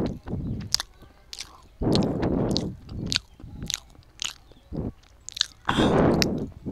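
Close-miked eating: biting and chewing with many short, sharp mouth clicks, with three louder stretches, near the start, about two seconds in and near the end.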